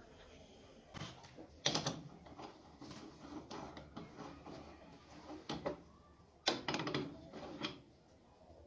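Steel workshop parts handled and knocked together: a drill chuck on its taper arbor and a three-jaw lathe chuck give a series of clinks, clunks and scrapes. The loudest knock comes a little under two seconds in, and a quick cluster comes from about six and a half to nearly eight seconds.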